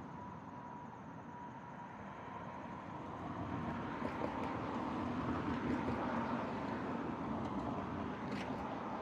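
A road vehicle passing by: tyre and engine noise swells to a peak about six seconds in, then fades.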